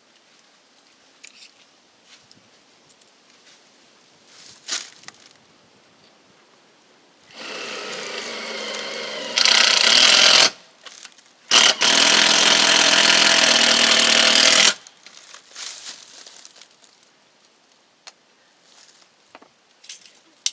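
A handheld electric power tool runs in two bursts of about three seconds each, with a short pause between. The first burst gets much louder partway through, with light handling knocks before and after.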